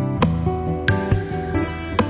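Background music: light acoustic guitar strumming over a bass line.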